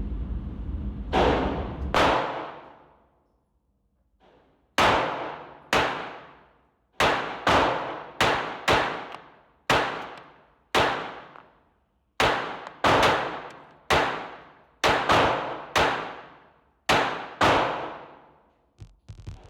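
Gunshots fired one after another in a long irregular string, about twenty in all, each echoing briefly. There is a pause of a couple of seconds after the first two shots.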